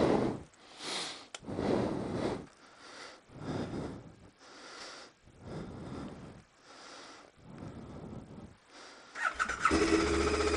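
A run of soft whooshing puffs about once a second, then near the end the KTM 1290 Super Adventure's V-twin engine, fitted with an aftermarket performance air intake, starts and settles into a steady idle.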